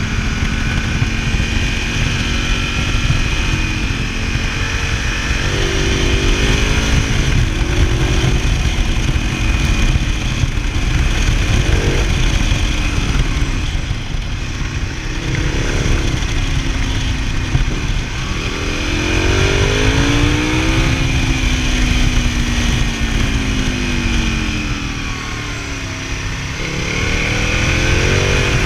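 Motorcycle V-twin engine under way with heavy wind rumble. Its pitch climbs several times as it accelerates and drops back between pulls.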